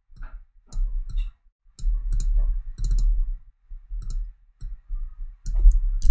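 Computer mouse clicks and keyboard keystrokes in short, irregular clusters, each stroke carrying a dull low thud.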